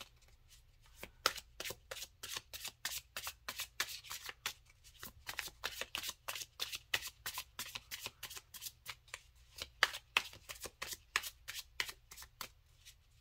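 Ceccoli Tarot deck being shuffled by hand: a rapid run of light card clicks, several a second, starting about a second in.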